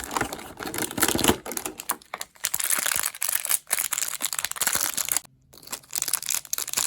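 Toy packaging being opened by hand: plastic and cardboard crinkling and tearing with small clicks and rustles, broken by a brief pause about five seconds in.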